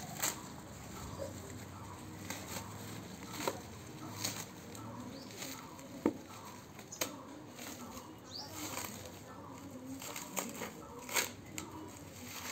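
Paper and plastic wrapping being torn and crinkled by hand as it is pulled off a new cricket bat, in scattered sharp crackles.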